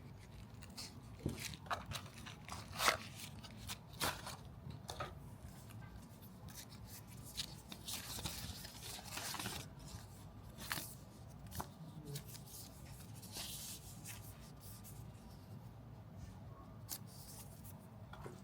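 Packaging being handled and opened: scattered clicks and taps, with a longer tearing rustle about eight to ten seconds in.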